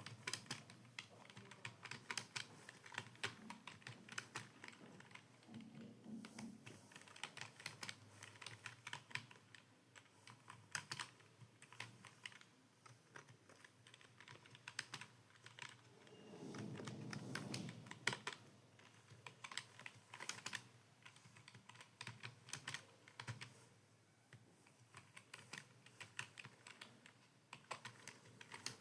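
Fast, uneven typing on a computer keyboard, key clicks pattering in quick runs with short pauses. A low hum rises for about two seconds past the middle.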